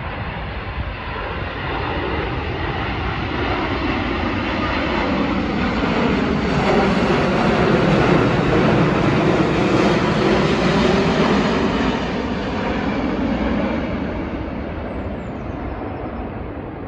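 Twin-engine widebody jet airliner on final approach, passing low overhead with landing gear down. Its steady engine rumble swells to its loudest about eight to ten seconds in, then fades as it moves away. Wind buffets the microphone.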